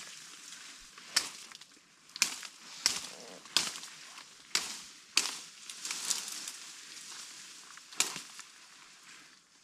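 Footsteps on a hiking trail: about seven sharp, irregular steps, roughly one a second, with scuffing noise between them.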